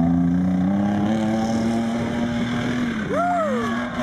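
Pickup truck engine running hard at steady revs, its pitch stepping up slightly about a second in. Near the end it gives way to a brief tone that rises and falls, then a long falling tone.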